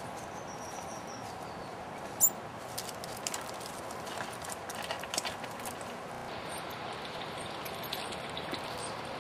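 Baby coatis scrabbling over dry leaves and tree bark: scattered light clicks and rustles over a steady outdoor hiss, with one sharp high click about two seconds in.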